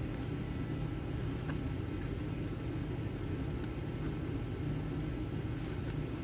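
A steady low background hum, with a few faint soft ticks and slides of trading cards being flipped through by hand.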